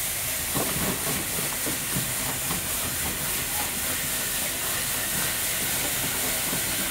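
Crushed ice rushing down a plastic chute into a fishing boat's ice hold: a steady hissing rush with a low rumble and scattered clatter of ice pieces.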